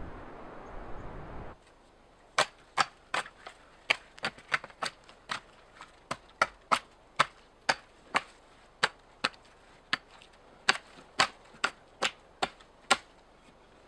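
An axe chopping into a small dead tree, a long run of sharp, dry knocks at about two to three blows a second, starting about two seconds in. Before that, a rush of wind that cuts off suddenly.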